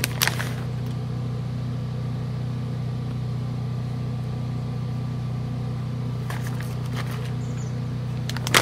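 Generator running steadily with an even hum, the power being out. A plastic bag of shredded cheese crinkles briefly a couple of times near the end.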